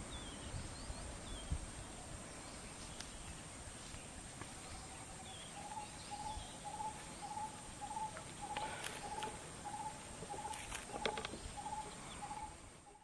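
Forest ambience: a steady high insect drone and a few small bird chirps. From about five seconds in, a bird repeats a low hooting note about twice a second. A few short crackles come in the second half.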